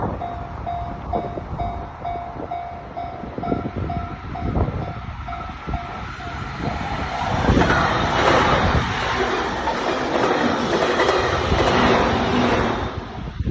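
Japanese level-crossing warning bell dinging about twice a second, with the clack of train wheels over rail joints. About halfway through, a train passes close by and its loud rush drowns the bell, then falls away near the end.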